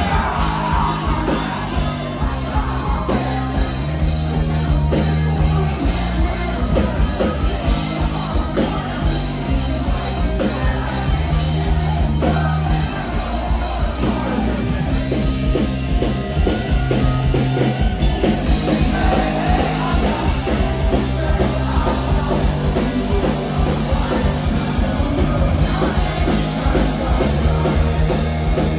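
Live rock band playing loud: distorted electric guitars, bass guitar and drums, with sung vocals.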